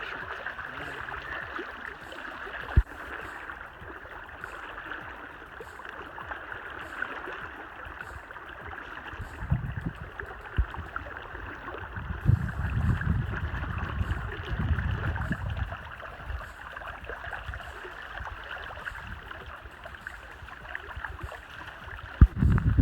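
River water rushing steadily. A low rumble swells in the middle, and there are two sharp knocks, one about three seconds in and one near the end.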